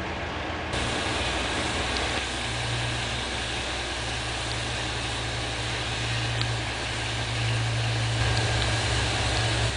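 Narrow-gauge locomotive engine idling as a steady low hum over an even hiss.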